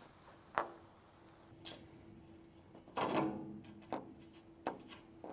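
Light knocks and taps from the metal cockpit-enclosure frame being handled, about seven scattered over a few seconds, the loudest about three seconds in. A faint steady hum runs underneath.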